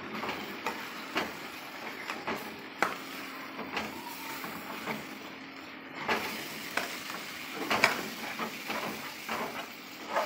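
A spatula stirring chunks of goat meat in a stainless steel pot, scraping and knocking irregularly against the metal over a steady sizzle as the meat browns. The knocks come thicker in the second half.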